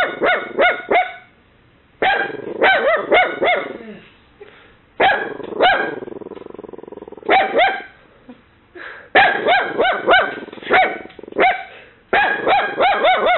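Miniature dachshund puppy barking shrilly in quick bursts of several yaps with short pauses between them. It is alert barking set off by a knocking noise, to ward off an imagined intruder. A longer, lower drawn-out sound runs under the barks about six seconds in.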